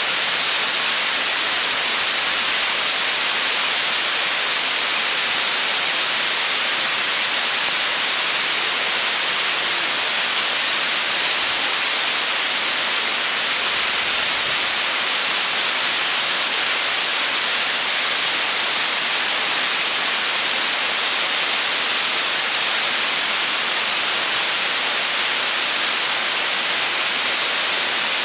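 Waterfall pouring down a narrow rock gorge into a pool: a loud, steady, unchanging hiss of falling water.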